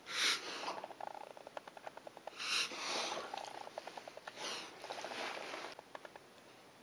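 Great Pyrenees dog reverse sneezing: a rapid fluttering series of forced inhalations through the nose, with three louder gasps about two seconds apart, dying down about six seconds in.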